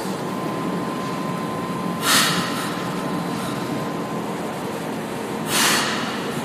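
São Paulo Metro train standing at the platform with its equipment humming steadily, with two short hisses of compressed air being let out, about three and a half seconds apart. A faint high whine stops about four seconds in.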